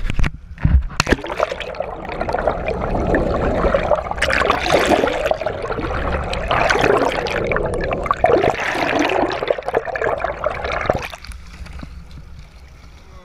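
Water rushing and gurgling around a camera moving through the sea, with a few sharp splashes in the first second as it goes under. The noise eases off about eleven seconds in, as the camera comes back up.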